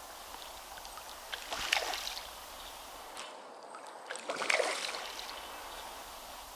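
Water splashing and sloshing at the surface as a hooked fish is played on float tackle, in two short bouts about a second and a half in and again around four and a half seconds.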